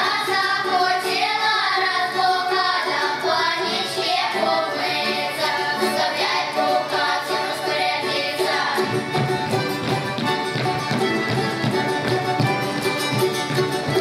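Children's folk ensemble singing a Russian folk song together, accompanied by accordion. About nine seconds in, the singing gives way to an instrumental passage.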